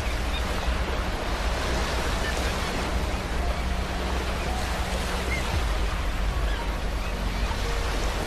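Ocean waves washing on a beach: a steady rushing surf sound that holds an even level, with no single crash standing out.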